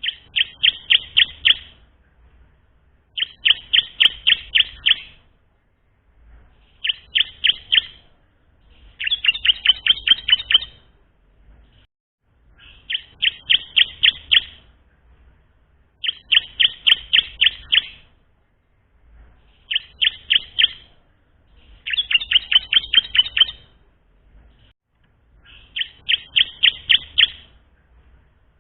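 Bar-winged prinia (ciblek) song: a young bird practising, giving short bursts of rapid, sharp chipping notes about every three seconds, nine runs in all.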